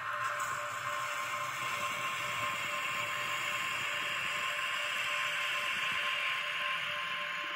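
N-scale model DB class 194 electric locomotive running slowly with a goods wagon: the steady whir of its small motor and gearing, with wheels rolling on the rails and a constant hum.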